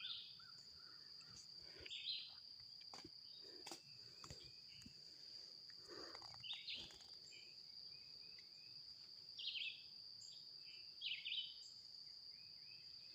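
Woodland ambience: a steady, high-pitched insect trill runs throughout, with short bird chirps breaking in now and then. There are a few faint clicks around three to four seconds in.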